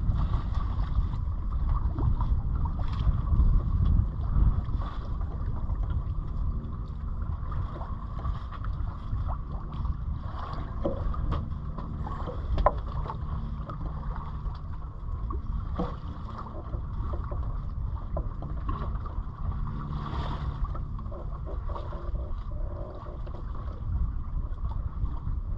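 Wind rumbling over the microphone aboard a Catalina 27 sailboat under sail, with steady water noise and scattered light knocks and clicks.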